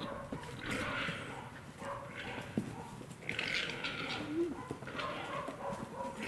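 Goats and a sheep shuffling about, hooves scuffing and rustling through dry fallen leaves in irregular bursts, with a few sharp clicks.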